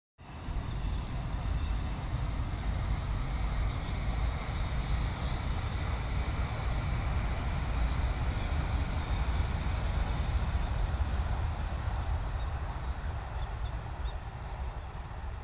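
Steady low rumble of a train running at a distance, easing off over the last few seconds.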